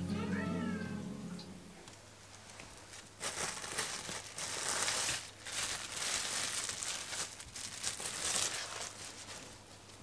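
A cat meows once near the start. Then plastic cling film crinkles and rustles for several seconds as it is peeled off a ball of cookie dough.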